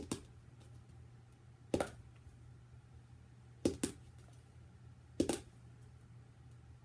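A plastic marker flipped onto a hardcover book, clacking sharply each time it lands, often with a second quick clack as it tips over; five tosses about one and a half to two seconds apart, the last one near the end landing and staying upright.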